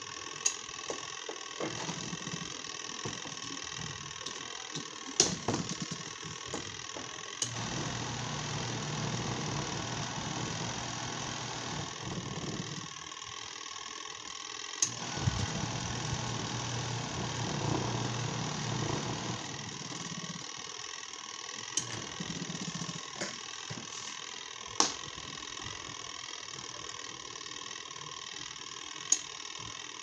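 Washing machine motor wired through its wash timer switch running in two bursts of about five seconds each with a short stop between, a low steady hum. Sharp clicks come here and there, two of them just as the motor starts, over a constant hiss.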